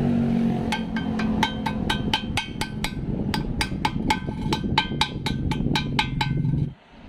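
Background music: a quick percussive beat of ringing strikes over a low bass line, cutting off abruptly near the end.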